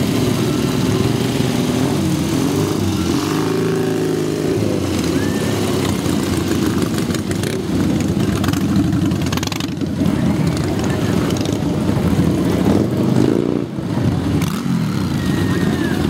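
Several motorcycle engines running at low speed as a line of classic and modern bikes rides slowly past one after another, their pitch rising and falling a little as throttles open and close.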